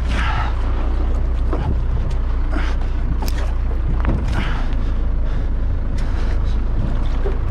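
Boat engine running with a steady low rumble, mixed with water and wind noise.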